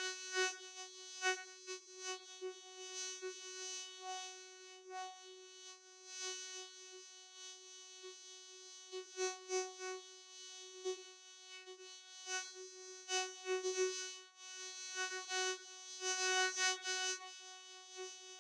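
Vocoder sound effect: a buzzy electronic tone held on one pitch, rich in overtones, its loudness fluttering in irregular bursts.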